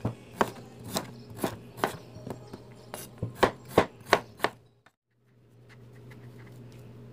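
Kitchen knife chopping a peeled potato on a wooden cutting board: about a dozen sharp knocks of the blade hitting the board, two or three a second, stopping after about four and a half seconds. After a short break, a low steady hum with faint scraping while the potato is mashed with a plastic rice paddle on a plate.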